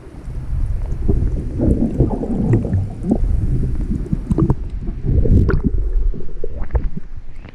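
Muffled water sounds heard through a waterproof action-camera housing moved about just under the sea surface: low gurgling and rumbling with small irregular knocks and splashes.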